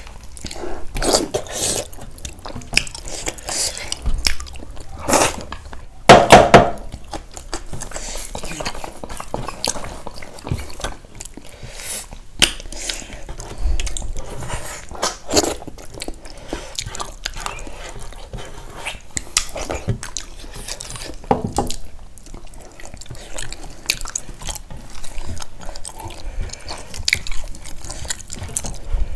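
Close-miked eating sounds: chewing and biting, with wet mouth smacks and soup slurps, and a louder burst about six seconds in.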